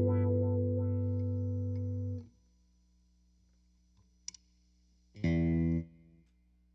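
A 1978 Alembic Series II electric bass through its battery-powered onboard electronics: a plucked note rings on and is damped about two seconds in. After a small click, a second short note is played about five seconds in and stopped quickly.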